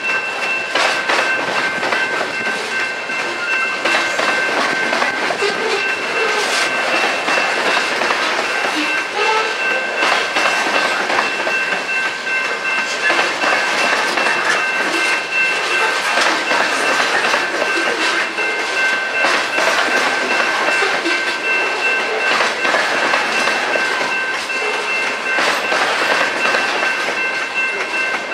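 Loaded coal hopper cars rolling past over a grade crossing: a steady clatter of steel wheels clicking over rail joints, with a steady high squeal of wheels against rail held throughout.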